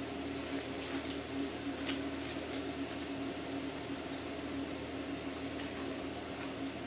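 Steady mechanical hum with a constant low tone and an even hiss, broken by a few faint ticks.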